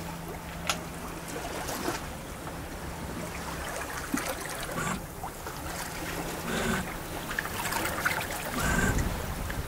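Water rushing and splashing along the hull of a sailing yacht under sail, with wind, a faint steady low hum and a few small knocks and creaks from the boat.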